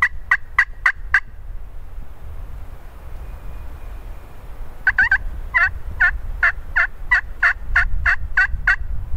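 Turkey yelps in two runs, about three a second: a short run ending about a second in, then a longer run of about a dozen starting about five seconds in. Wind rumbles on the microphone underneath.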